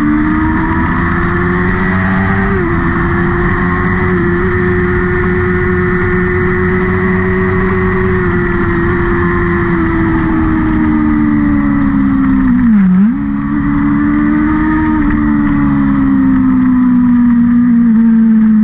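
Vehicle engine running hard on a race circuit, held at high revs with one sharp dip and recovery in pitch about two-thirds of the way through. The revs ease down slowly near the end.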